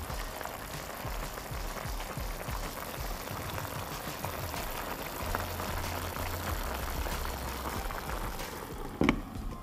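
Pot of mussels and greens simmering, a steady bubbling hiss with small crackles, over background music with a low bass line. A single clunk near the end.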